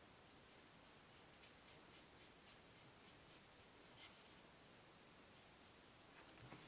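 Faint tip of a Stampin' Blends alcohol marker rubbing on paper in short, quick colouring strokes, about four a second, with a slightly louder tick about four seconds in; the strokes stop a little past halfway.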